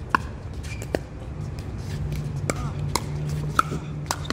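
Pickleball paddles hitting the hollow plastic ball in a fast net exchange: about six sharp pops in four seconds, some with a short hollow ring.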